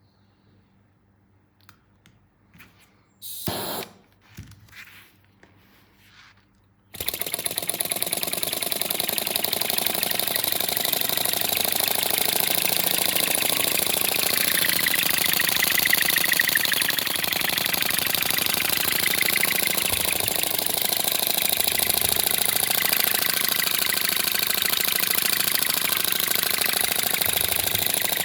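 A model helicopter's miniature engine starts abruptly about seven seconds in and then runs steadily, swelling slightly louder for a moment near the middle. Before it starts there are a few faint handling clicks and one short loud burst.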